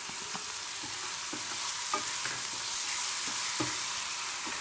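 Chopped onion and tomato sizzling in hot oil in a frying pan, a steady hiss. A wooden spatula stirs through it with a scattering of short knocks and scrapes.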